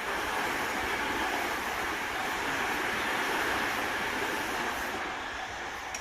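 Electric commuter train passing close by at a level crossing, a steady rush of wheels on rail, dying away in the last second.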